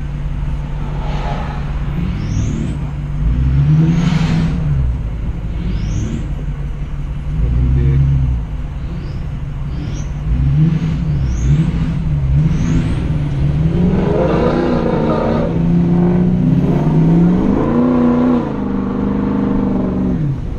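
Diesel pickup truck's engine heard from inside the cab while driving, repeatedly accelerating up in pitch and dropping back. A thin high whistle rises over several of the revs.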